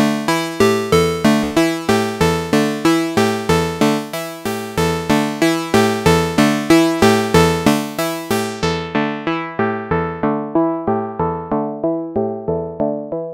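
Moog Subharmonicon analog synthesizer playing its step-sequenced pattern of short, sharply struck notes, about four a second. From about eight seconds in, the low-pass ladder filter's cutoff is turned down and the tone grows steadily darker as the bright highs fade away.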